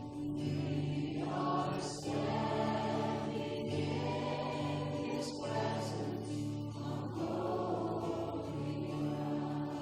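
Congregational worship singing with a band: a slow song sung by many voices over sustained keyboard chords and a steady bass.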